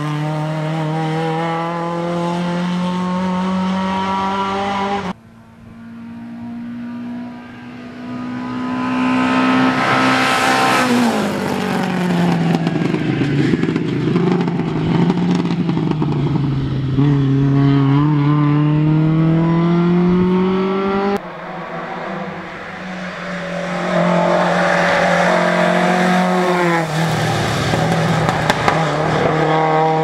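Lada 2107 rally car's four-cylinder engine at high revs, its pitch climbing and dropping through gear changes. About five seconds in the sound cuts to the car approaching and passing close by, loudest just before the halfway point. It cuts again at about two-thirds of the way through to the engine revving hard, with a brief dip near the end.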